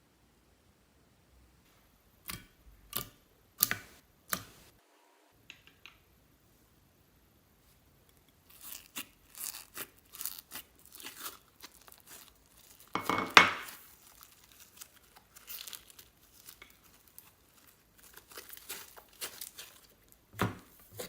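Crisp crackling and crinkling from hands working slime and its mix-ins close to the microphone. There are a few separate crackles, then a busier run of crackles with one loud crackle about halfway through.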